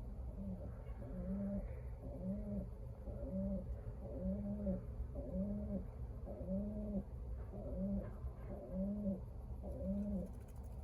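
Racing pigeon cooing over and over: about ten low, arching coos, roughly one a second, over a steady low hum.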